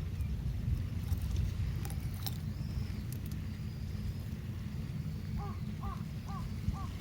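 A crow cawing about five times in quick, even succession in the second half, over a steady low rumble of wind on the microphone. A few sharp pops come in the first half.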